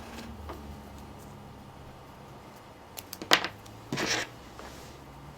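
Small parts and tools being handled at a workbench: a few light clicks about three seconds in, then a single short rasp about a second later, over a faint low hum.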